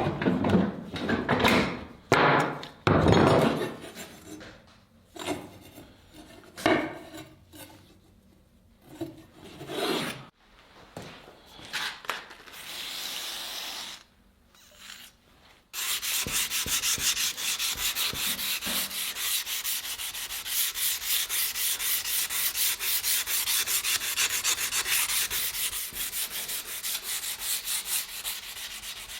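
Scattered knocks and clatter from handling tools and the workpiece, then, about halfway through, hand sanding begins with quick, even back-and-forth strokes.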